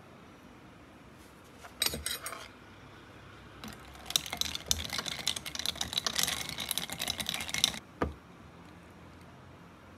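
Ice cubes clinking and rattling in a glass as iced coffee with milk is stirred with a thin metal spoon, in dense rapid clicks for about four seconds, after a short clatter about two seconds in. A single knock comes near the end.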